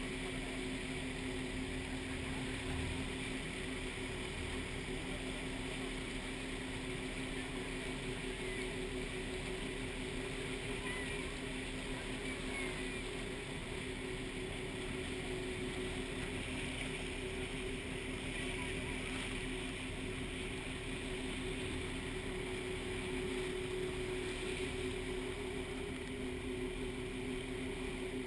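Tour boat's engine running with a steady two-note hum over a constant rush of water.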